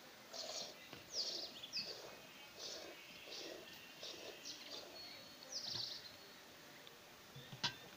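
Milk squirting from a cow's teats into a small steel pot during hand milking, in short hissing jets about one a second. A single sharp knock comes near the end.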